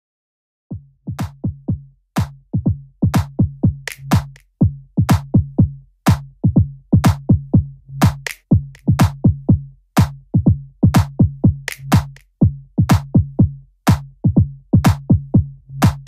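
Electronic background music: a drum-machine beat over a steady bass note, starting just under a second in.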